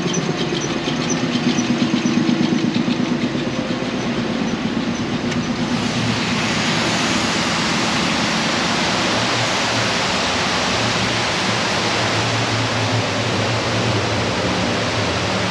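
Machinery in a building's mechanical room running with a rhythmic pulsing hum, giving way about six seconds in to the steady rushing of a rooftop cooling tower: water falling through its fill, with the fan running.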